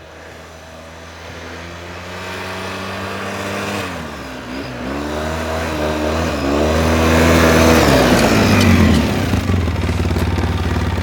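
ATV on snow tracks approaching, its engine getting steadily louder and changing speed, with the pitch dropping about 4 seconds in, climbing again, then falling near the end as it slows and settles to a steady idle close by.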